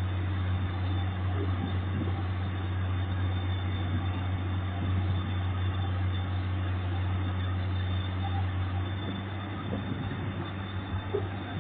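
Komatsu PC200 excavator's diesel engine running steadily, a low, even hum with no change in pitch.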